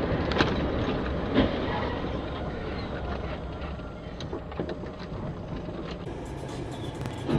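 Steady rumble of a vehicle driving on a wet highway, heard from inside, with a few short knocks, the clearest about a second and a half in.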